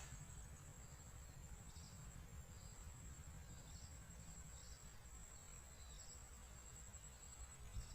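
Faint, steady high-pitched insect buzzing, with soft short chirps about once a second over a low rumble.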